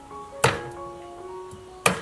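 Two chops of a cleaver through chicken onto a wooden chopping board, about a second and a half apart, over soft background music.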